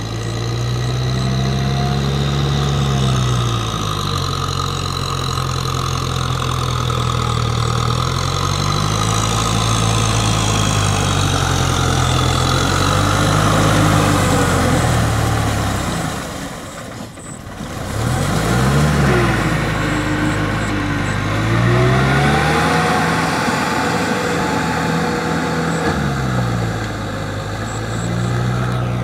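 Kubota M6040 SU tractor's diesel engine working steadily while it pulls a rotary tiller through paddy mud, its pitch rising and falling several times. The sound dips briefly a little past halfway.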